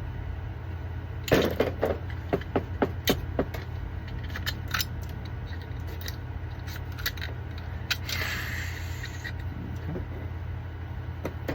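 Small 3D-printed plastic parts clicking and rattling as they are handled and snapped apart, with a quick run of sharp clicks in the first few seconds and a brief scrape near the end. A steady low hum runs underneath.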